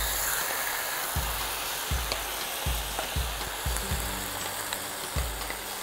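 Yogurt-and-ghee-marinated chicken sizzling as it is scraped with a wooden spatula into a hot pan on an induction cooktop: a steady frying hiss with soft low thumps every half second or so.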